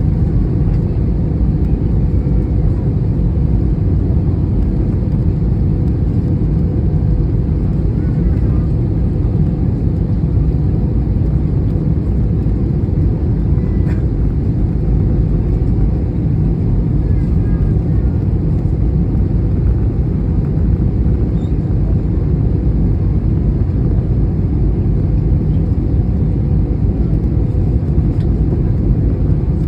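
Steady low rumble of airliner cabin noise, engines and airflow heard from inside the cabin, with a faint steady hum.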